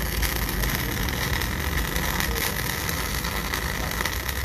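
MIG welding arc crackling steadily, throwing sparks, as a weld bead is run to join a 50 mm shaft.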